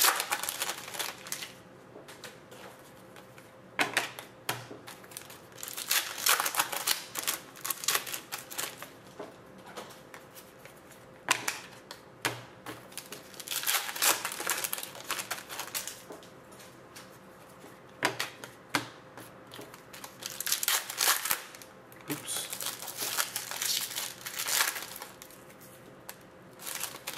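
Foil wrappers of Panini Contenders hockey card packs crinkling and tearing as they are opened by hand, in irregular bursts of a second or two with short pauses between.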